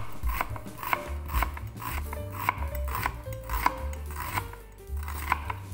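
Knife chopping an onion on a cutting board, about two strokes a second, over background music.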